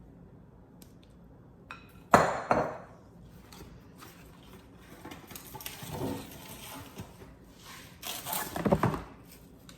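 Kitchen handling sounds: a sharp clink of dishes or utensils about two seconds in, then softer clatter and a burst of rustling and knocking near the end.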